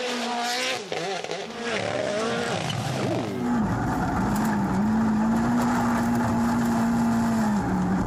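Rally car engine under hard acceleration. The revs rise and fall through quick gear changes for the first few seconds, then hold steady at high revs for the rest, heard from the onboard camera.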